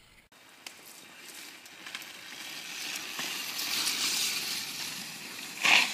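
Rush of a mountain bike descending fast on an action camera: tyre and wind noise builds to a peak midway and eases off. A short, loud burst comes near the end.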